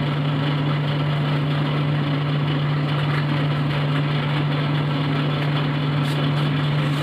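A steady low hum with an even hiss over it, unchanging in level; no distinct scraping strokes stand out.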